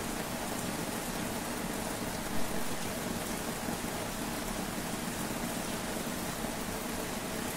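A steady, even rush of heavy rain together with the fast-flowing water of a river in flood.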